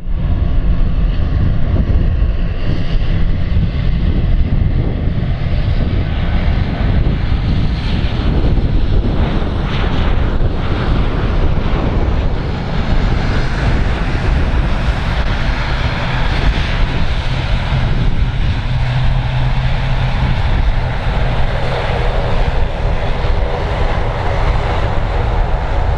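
Boeing 737-800 airliner's CFM56 jet engines running loud as the aircraft passes, with a whining tone over the second half. Heavy low rumble under it, with wind on the microphone.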